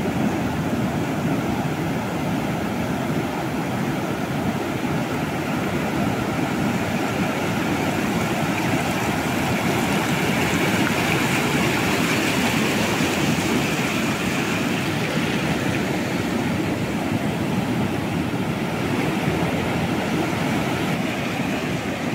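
Steady rush of breaking surf and swash on an open beach, swelling a little about halfway through.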